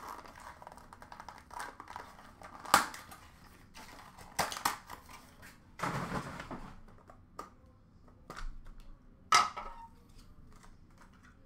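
Trading card box and clear plastic card case being handled: a series of sharp clicks and knocks, the loudest about three seconds in, with a short scraping rustle about six seconds in.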